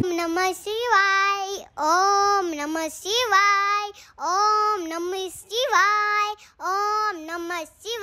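A child's voice singing a short chant-like phrase over and over, about seven held notes in turn, each about a second long and dropping in pitch at its end, with brief breaks between them.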